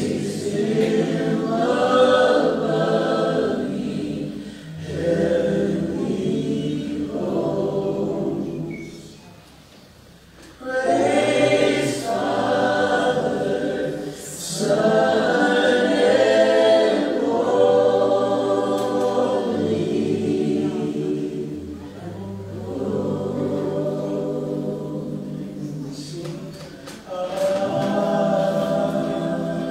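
A choir singing in sustained phrases, with a short break about ten seconds in.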